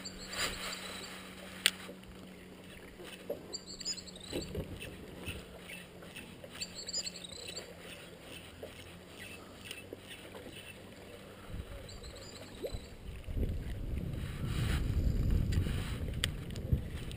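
Ambience from a fishing boat on open water: a steady low hum that fades out about ten seconds in, a sharp click, and a bird calling three times with short warbling chirps. Near the end a low rumble builds and grows louder.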